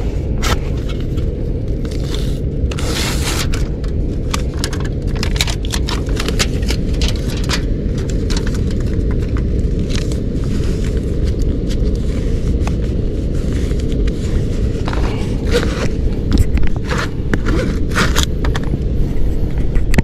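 Foil tape being pressed and worked onto a foil-faced duct plenum to seal an air leak: repeated crinkling and scraping of foil, over a steady low rumble.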